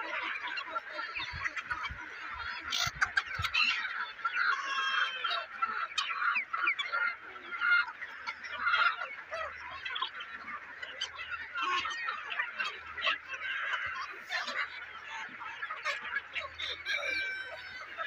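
A large flock of chickens clucking and calling continuously, many birds overlapping at once.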